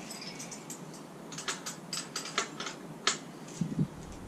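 Scattered sharp clicks and taps of a spanner on the motorcycle's rear axle nut and chain adjuster locking nuts as they are checked for tightness. The loudest click comes about three seconds in.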